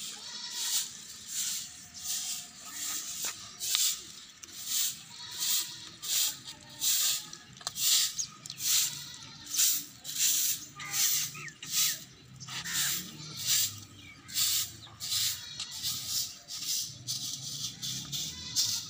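Short hand-held straw broom sweeping dry leaves and dust across a brick-tiled roof: regular rustling swishes, a little more than one stroke a second.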